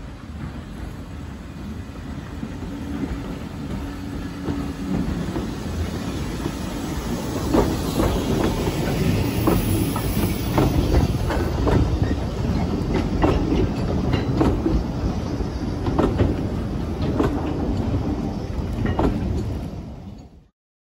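Steam-hauled heritage train, a saddle-tank locomotive with vintage wooden coaches, drawing near and running past, growing louder. As the coaches pass, the wheels click over the rail joints in a steady rhythm. The sound cuts off just before the end.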